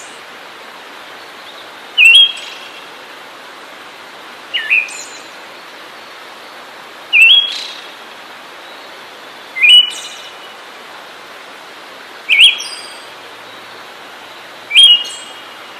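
A songbird giving a short, sharp call six times, about every two and a half seconds, over a steady background hiss.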